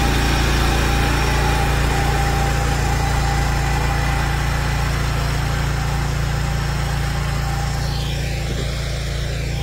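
Sraja walk-behind power weeder's engine running steadily under load as it pulls a ridger through the soil, cutting a furrow. It grows a little fainter near the end.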